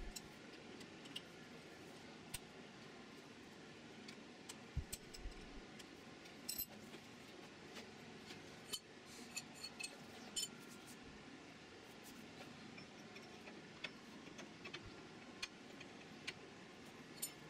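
Faint, scattered metallic clicks and clinks of steel parts being handled on a milling-machine vise: a barrel fixture set into the soft jaws and an AR-15 barrel placed against it.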